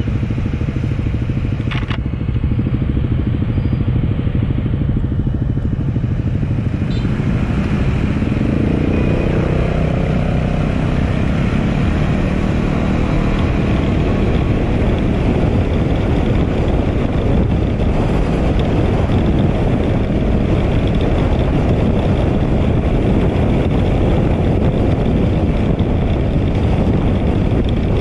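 Motorcycle riding in a group, heard from the rider's own bike: steady engine and road noise, with the engine pitch rising about eight to ten seconds in as it pulls away and accelerates, and wind rushing over the microphone once under way.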